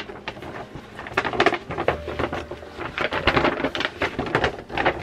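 Tissue paper rustling and crinkling as it is handled, in a run of irregular crackles.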